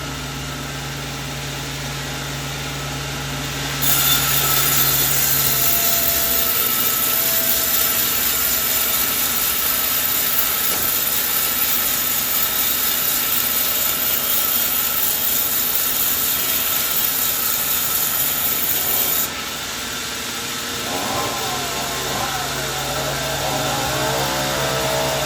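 Sawmill blade cutting through a coconut tree log. The machine's motor hums, the cut starts with a loud hiss about four seconds in, runs steadily, and stops sharply near the three-quarter mark, leaving the motor running.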